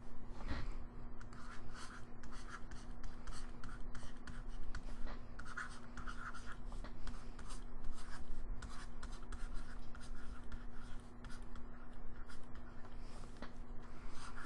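Stylus scratching across a drawing tablet in quick irregular handwriting strokes, over a faint steady electrical hum.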